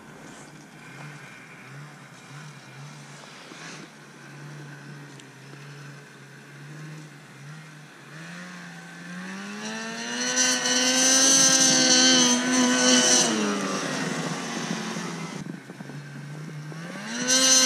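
Two-stroke engine of a 2019 Polaris Switchback Assault 850 snowmobile with an aftermarket exhaust can, heard from a distance. It runs at low revs with the throttle pulsing, revs up hard about nine seconds in and holds high revs for a few seconds, eases off, then revs up again near the end.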